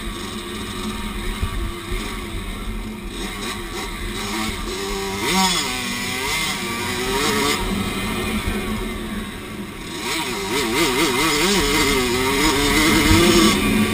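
Dirt bike engine heard from on board while riding, revving up and down with the throttle in repeated swells; it is loudest near the end.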